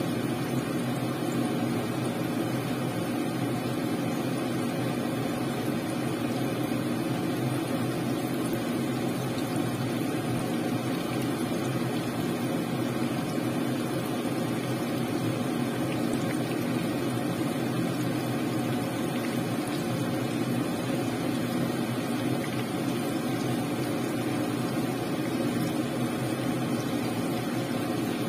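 Battered chicken pieces sizzling and bubbling steadily as they deep-fry in hot oil, over a steady low hum.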